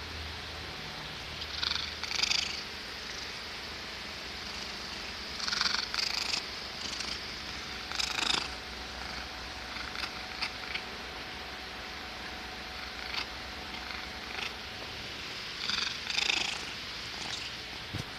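A cat purring steadily, broken several times, often in pairs, by short bursts of noisy breath.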